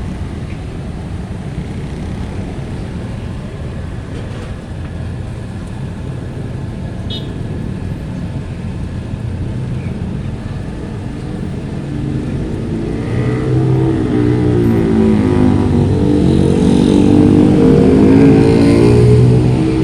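Motor traffic: a steady engine rumble that grows louder about two-thirds of the way in, as a vehicle's engine comes close and its pitch rises and falls.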